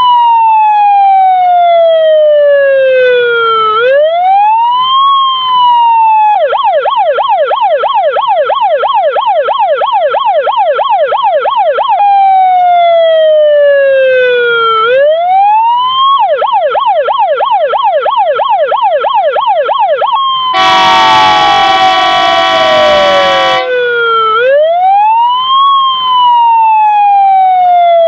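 Electronic siren of a Jelcz 422 fire engine sounding, switching between a slow sweep that falls and then rises and a rapid warble. About two-thirds of the way through, a steady horn blast of about three seconds sounds over it.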